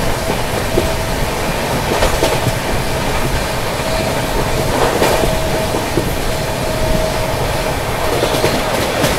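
Express passenger train running at speed through a station, a steady rolling rush with the wheels clattering over rail joints and points every few seconds. A faint steady whine comes and goes.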